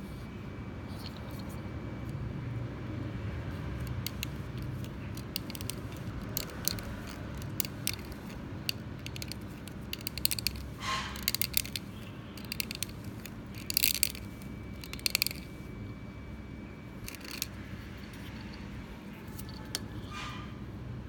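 A knife blade scraping and shaving the cut edge of a clear plastic syringe barrel to sharpen it, in short irregular scratchy strokes and clicks, over a steady low background rumble.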